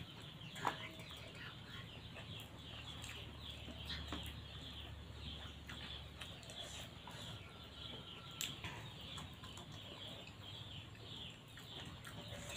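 Chickens clucking and chirping faintly, with a couple of soft clicks.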